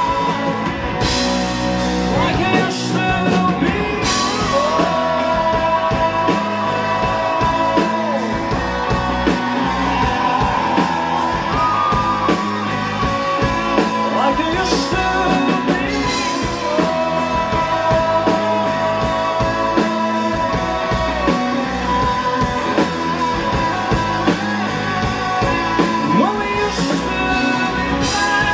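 Rock band playing live: electric guitars, bass and drum kit under a sung vocal with long held notes, with cymbal crashes a few times.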